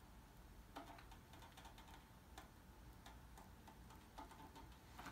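Near silence: room tone with a few faint, irregular ticks and clicks.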